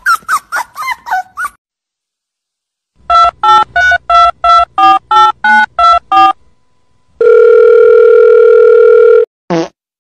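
Telephone keypad dialing tones: about eleven quick beeps, each a two-note chord, followed by a steady phone line tone held for about two seconds. It opens with the end of a run of quick high yips that stops about a second and a half in, and a short falling cry comes near the end.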